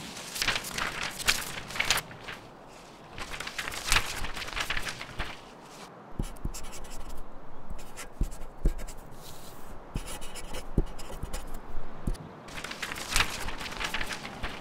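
Pen scratching on notebook paper in three bursts of writing, with a few low thumps in the pauses between them.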